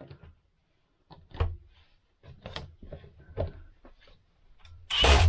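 Scattered light clicks and knocks of screws and metal parts being handled while a roof air-conditioner shroud is screwed in place. Near the end come three short, louder noisy bursts.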